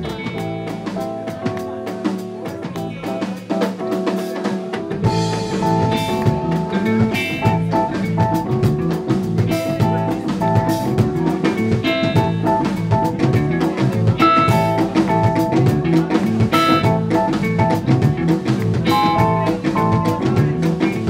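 Live Ethio-jazz band playing, with electric guitar, bass, keyboard and drum kit. About five seconds in, the bass and drums come in fully and the music grows louder.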